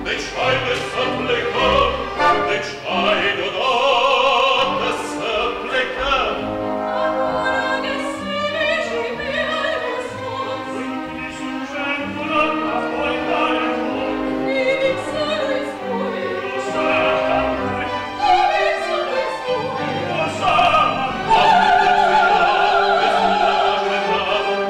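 Operetta singing with orchestral accompaniment: voices sung in a trained operatic style over a full orchestra, live from the stage.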